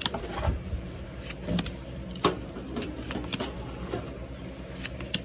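Pokémon trading cards and pack wrappers being handled: scattered light clicks and rustles over a steady low background hum.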